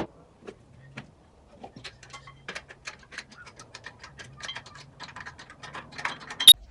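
Quick, irregular clicking and clinking of metal rigging hardware (hoist chains and hooks) being handled, with one sharp, louder clack near the end.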